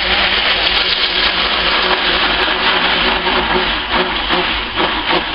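Handheld stick blender running in a small cup of pink soap batter: a steady motor whir that wavers briefly near the end as the blade churns the batter.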